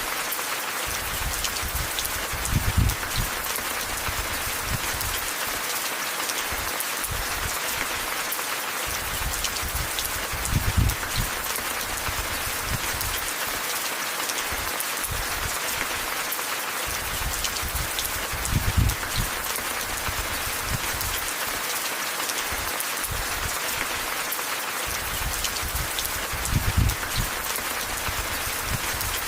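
Steady rain falling, an even hiss of many drops. A short, low thump or rumble comes about every eight seconds, four times in all.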